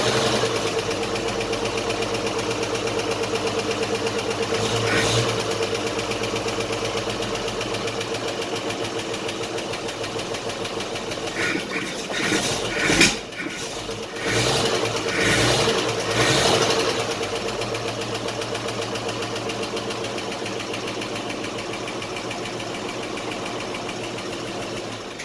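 1956 Chevrolet truck's inline six-cylinder engine idling steadily just after starting right up on a newly fitted Pertronix Ignitor II electronic ignition in place of the points, with a few louder uneven sounds around the middle. The sound cuts off at the very end.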